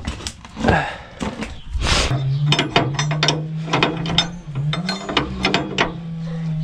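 A ratchet wrench clicks at about four clicks a second as a bolt on a rotary tiller's hitch is worked loose, over a steady low hum. A few metal knocks and clatter come first, as the PTO shaft is handled.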